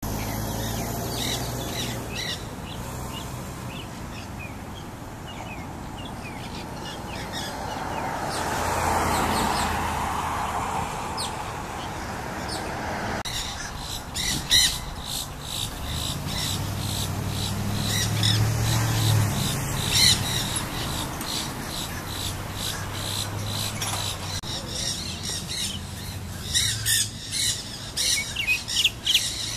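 Nanday parakeets (black-hooded parakeets) chattering in harsh squawks: sparse in the first half, then closer, denser and louder from about 13 seconds in. A low steady hum and a broad swell of background noise around ten seconds in run underneath.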